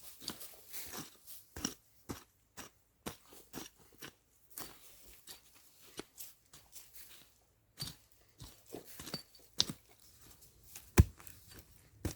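Irregular crunching and scraping strokes, several a second at times, with one heavy thud about eleven seconds in.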